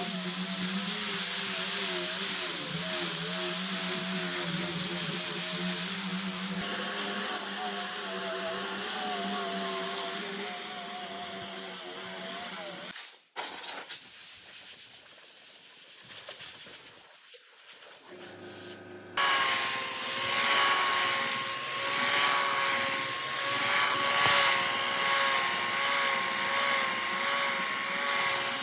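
Electric power tools working wood, with a steady motor whine whose pitch wavers under load. About halfway through it breaks off and goes quieter. A few seconds later another tool starts and runs with a steadier whine.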